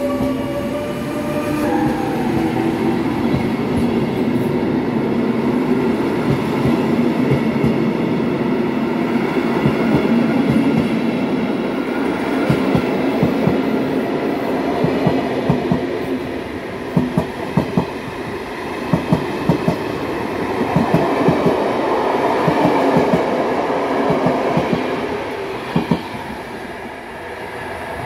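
Electric-hauled passenger train accelerating. About two seconds in, the Taurus locomotive's rising converter whine fades out. After that the coaches roll by with a steady rumble and a clickety-clack of wheels over rail joints, often in quick pairs, easing off near the end as the last coach moves away.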